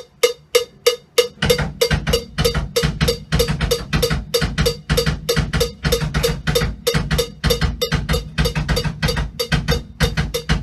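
A metronome click track ticking about three times a second, then about one and a half seconds in a rock drum kit comes in, with kick drum and cymbals hit in time with the click. The click is loud enough to be bleeding out of the drummer's headphones into the recording.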